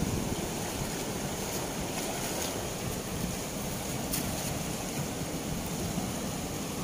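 Fast, turbulent river water rushing out below the open gates of a barrage, a steady even rush of white water.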